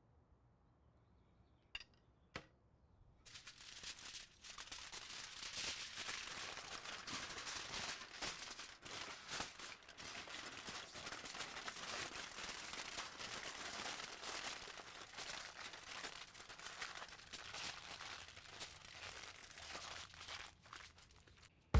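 Aluminium foil being folded and crumpled by hand to wrap a smoked pork shank: a continuous crinkling that starts about three seconds in. Before it come two light clicks.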